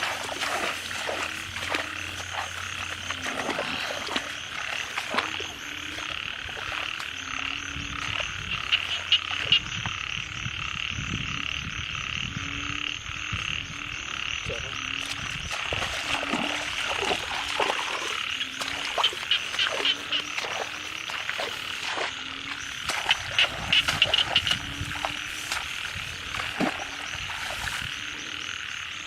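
Frogs croaking: short low calls repeating about once a second over a steady, high-pitched chorus, with scattered clicks and knocks.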